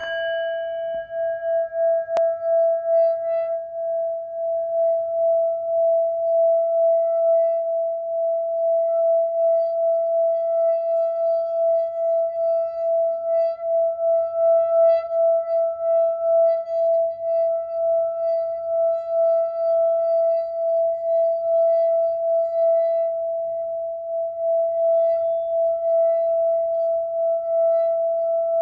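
Singing bowl struck once at the start, then kept sounding: one clear ringing tone with fainter higher overtones. It holds at an even level with a slow pulsing waver rather than dying away.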